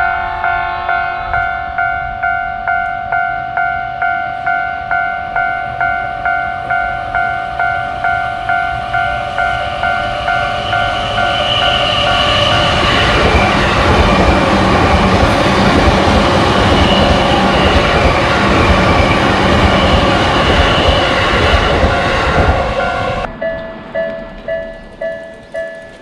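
Japanese level-crossing warning bell ringing its 'kan-kan' alarm, about two strikes a second. From about halfway an electric commuter train runs past close by, and its steady rush of wheels on rails covers the bell for some ten seconds. Near the end a different crossing bell comes in with a higher ring at the same pace.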